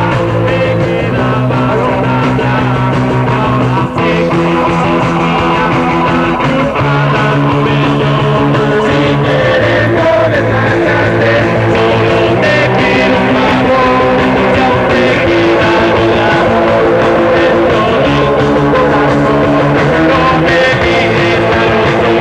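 Live rock band playing a punk-rock song at steady full volume, with guitar, bass and drums, and held chords that change every second or two.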